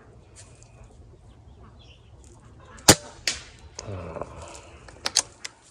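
A single air rifle shot cracks about three seconds in. A fainter crack follows about half a second later as the pellet hits the steel reset target downrange. A short honking bird call and a few quick sharp clicks come after.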